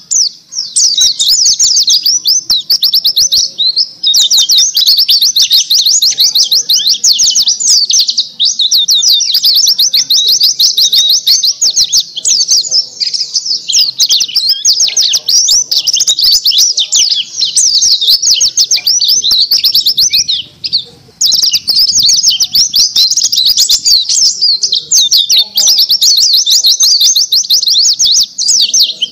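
A Bali dakun white-eye (pleci) singing a fast, unbroken, high-pitched twittering song, free of the low 'glontang' notes, with short pauses about four seconds in and around twenty seconds in.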